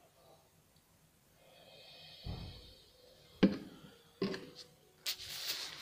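Petrol trickling faintly from a plastic can into the intake ports of a cylinder head. Then come a dull thud and two sharp knocks as the can is handled and set down, and a brief burst of rustling or scraping noise near the end.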